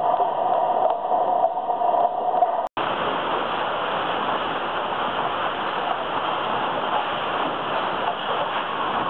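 Recycling sorting line's conveyors and machinery running steadily with mixed recyclables moving along the belts: first a steady hum, then after a brief break about two and a half seconds in, a dense, even rush of noise.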